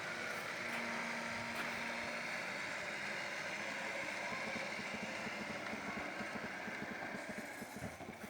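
Electric swing-gate operator motor running with a steady whir as the remote-controlled gate swings, fading away near the end as it stops.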